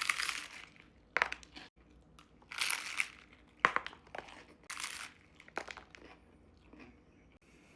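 Food wrapping crinkling and crumpling in a string of short bursts as a tightly wrapped takeout sope is handled and opened; the bursts thin out toward the end.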